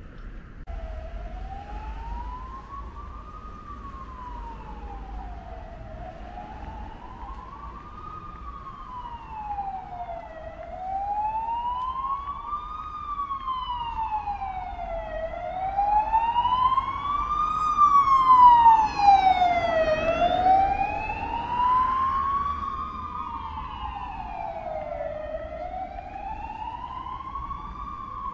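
An emergency vehicle's siren wailing, its pitch sweeping slowly up and down about every five seconds. It grows louder to a peak about two-thirds of the way through, then eases off somewhat.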